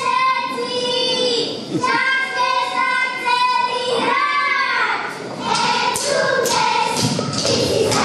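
Children's voices singing a Slovak folk song into stage microphones in long, held, bending notes. From about five seconds in, sharp thumps join the singing, fitting dancers' feet stamping on the wooden stage.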